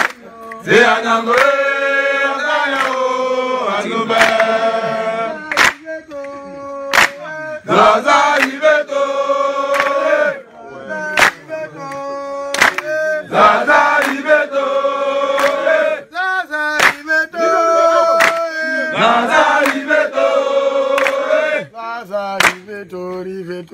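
A group of scouts singing a call-and-response animation chant together, in phrases of a few seconds with held notes, broken by short pauses and a few sharp strikes between phrases.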